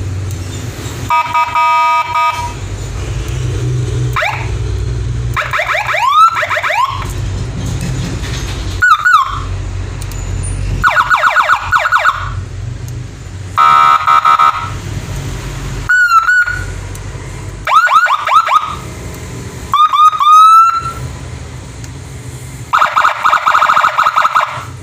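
12-tone electronic siren horn sounding about ten short bursts of different siren tones in turn: rapid pulsing beeps alternating with rising whoops and yelps.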